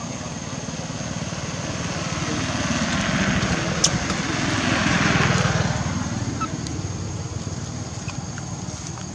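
A motor vehicle's engine passing by, growing louder to a peak about five seconds in and then fading away.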